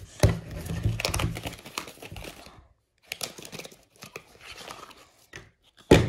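A small cardboard puzzle box being opened by hand: crinkling and rustling of the box and its packaging, with clicks and light knocks, in two spells split by a short pause, ending in a sharp click.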